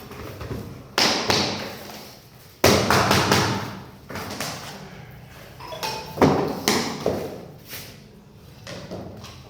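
SPC floor planks being knocked into place: a series of sharp thuds and knocks, several in quick succession, with pauses between.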